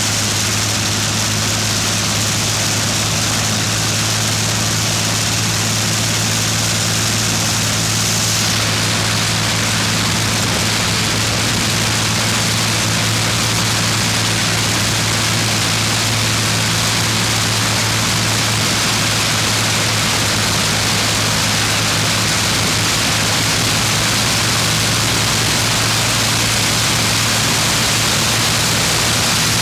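Aircraft piston engines running steadily on test trailers with propellers spinning: a loud, even drone with a deep steady hum under a hissing rush of propeller wash. The sound shifts slightly about eight seconds in.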